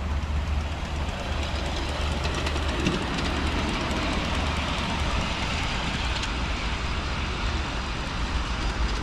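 Ride-on miniature live-steam locomotive running along a raised track with passengers aboard, its wheels rolling over the rails, over a steady low rumble.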